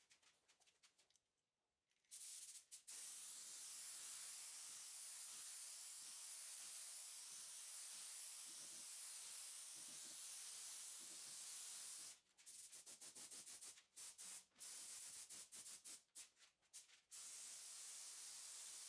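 Gravity-feed automotive paint spray gun hissing as compressed air sprays primer filler. It starts about two seconds in and runs steadily, then breaks into many short spurts as the trigger is pulled and released in quick strokes, then runs steadily again near the end.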